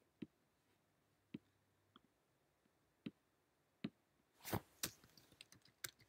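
Faint, scattered single clicks on a computer about once a second, then from about four and a half seconds a quicker run of keystrokes on a laptop keyboard, as a password is typed in.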